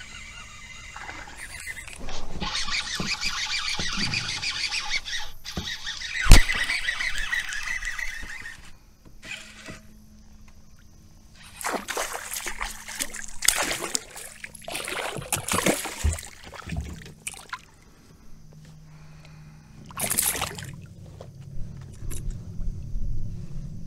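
Baitcasting reel cranking in a buzzbait with a rapid clattering whir, broken by a sharp knock about six seconds in. About halfway through a small hooked pike splashes and thrashes at the surface beside the kayak in several bursts, with one more splash near the end.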